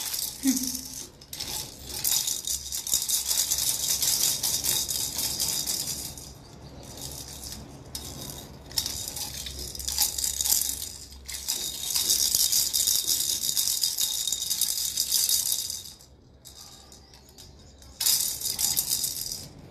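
Plastic baby rattles shaken by hand, a fast hissy rattling in four bouts with short pauses between them.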